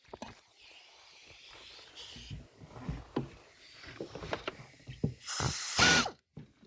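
Tools and fasteners clicking and knocking while steering column bolts are fitted under the dashboard, then a loud hissing burst of about a second near the end.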